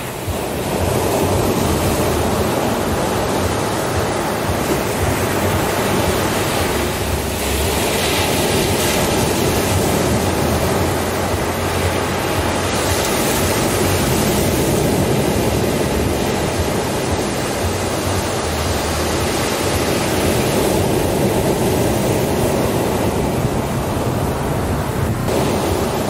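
Ocean surf on a sandy beach: waves breaking and washing up the shore in a continuous rush, swelling as bigger waves crash a few times.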